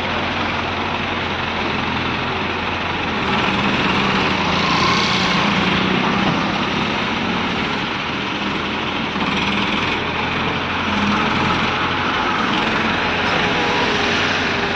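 Diesel engine of an ACE hydra pick-and-carry crane running steadily as it holds a lift.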